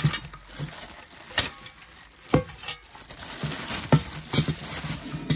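Clear plastic wrapping crinkling as it is handled and pulled off a stainless steel cook pot, with a few sharp metal clinks from the pot and its wire bail handle.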